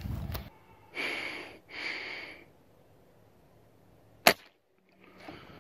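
Seneca Dragonfly Mk2 multi-pump air rifle firing a single pellet shot about four seconds in: one sharp crack that cuts off short. Two short soft hisses come earlier.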